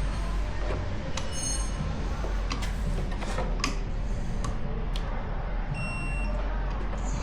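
Snap-on digital torque wrench ratcheting in scattered clicks as fasteners are tightened. It gives short electronic beeps, one about a second and a half in and a longer one near six seconds, signalling that the set torque has been reached. A steady low hum runs underneath.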